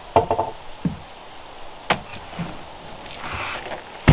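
Wooden knocks and thuds on a plank floor: a quick clatter of ringing wooden knocks near the start, a few dull thuds of footsteps on the boards, a sharp tap about two seconds in, a brief rustle a little after three seconds, and a heavy thud at the end.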